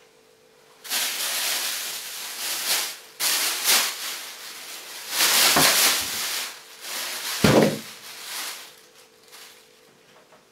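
A person hissing like an angry cat: several long hisses one after another, with two dull thumps in the middle.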